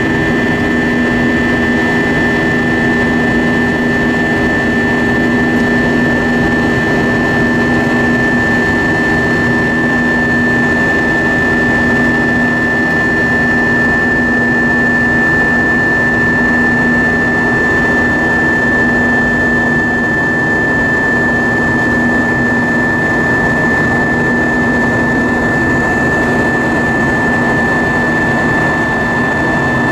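Steady cabin drone of an Airbus A320-232 in flight, its IAE V2500 jet engines and the airflow heard from inside the passenger cabin, with a constant high whine over a low hum.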